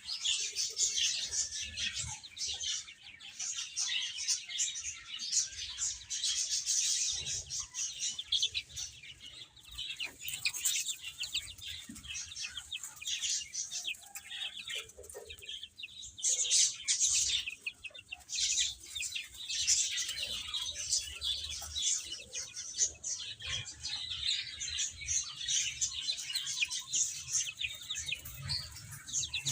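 Baby chicks chirping continuously: many overlapping high-pitched peeps.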